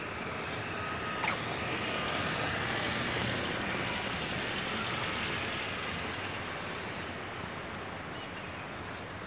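Distant road traffic noise: an even hiss that swells over the first few seconds and slowly fades.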